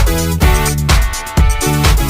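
Upbeat electronic background music with a steady drum beat, about two hits a second, and a bass line.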